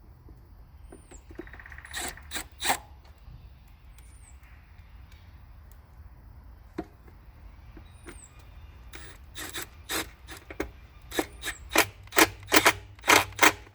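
Hand work with screws and tools on the motorcycle's oil tank mounting: scattered sharp clicks and knocks of metal parts, a brief whir about two seconds in, and a quick run of sharp clicks in the last few seconds as the screws are tightened.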